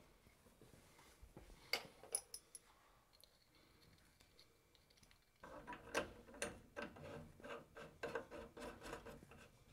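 Faint clinks and scrapes of copper pipe and a metal union fitting being handled and fitted together by hand. A few light clicks come a little under two seconds in, then a quicker run of small clicks and rattles from about halfway on.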